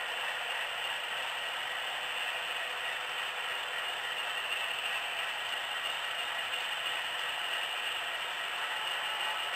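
HO scale model double-stack container train rolling along the track: a steady, fine clicking clatter of the small wheels on the rails.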